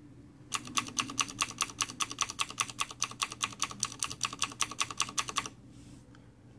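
Tab key on a 2013 Razer BlackWidow Ultimate with Cherry MX Blue switches, pressed rapidly over and over: a fast, even run of about eight clicks a second that stops about a second before the end. The clicks are loud and pronounced.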